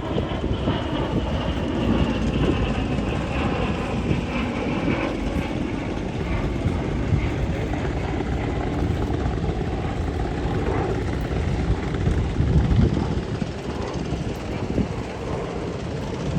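Lockheed P-38 Lightning's twin Allison V-12 engines droning in flight, the pitch falling over the first several seconds as the plane passes.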